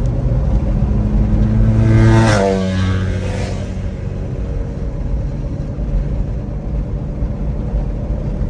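Pickup truck engine and road noise while driving. The engine climbs in pitch for about two seconds, drops as it shifts up a gear, then runs steadily.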